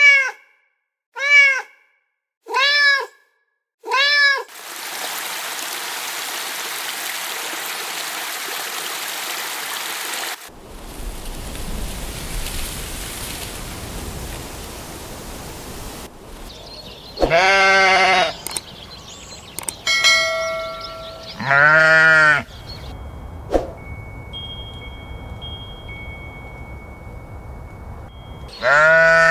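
A sequence of animal calls: four short calls about a second and a half apart, then a stretch of steady rushing noise. After that come several longer calls with a wavering pitch, a steady whistle-like tone held for a few seconds, and another call starting near the end.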